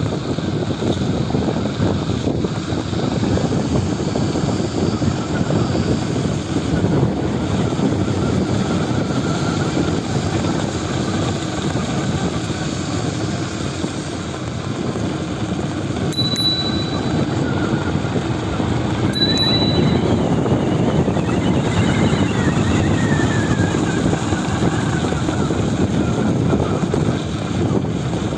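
Wind rushing over the microphone of a moving bicycle, a steady low buffeting noise. Two short high beeps sound about a third of the way from the end, and a faint whine rises and falls soon after.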